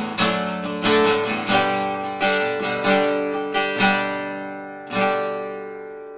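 Acoustic archtop guitar, a 1940s Epiphone Emperor, played unamplified: full chords struck in a steady rhythm about every 0.7 s, each ringing on. The last chord, about five seconds in, is left to ring out and fade.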